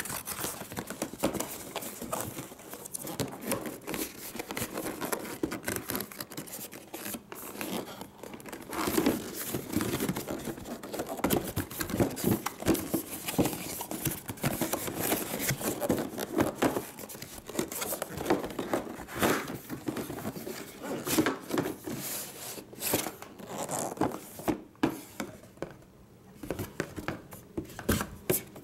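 A cardboard router box being opened and handled by hand: irregular rustling, scraping and small knocks of cardboard and paper as a white inner box is slid out of the printed outer box.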